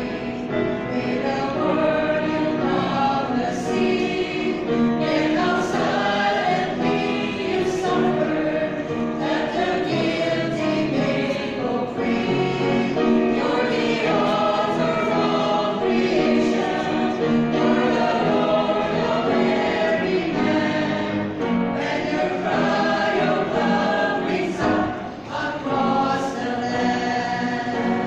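Mixed church choir of men and women singing a hymn together in several parts.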